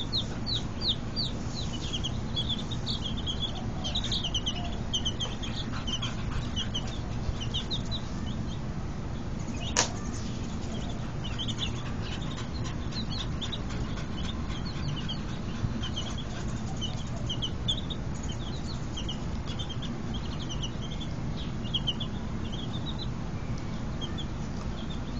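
A brood of baby chicks peeping continuously, many short high chirps overlapping, over steady low background noise, with one sharp click about ten seconds in.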